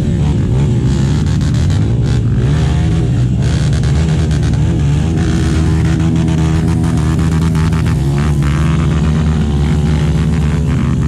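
Honda CRF450X dirt bike's single-cylinder four-stroke engine running under load on the trail, its pitch rising and falling again and again as the throttle is worked, with frequent short knocks over it.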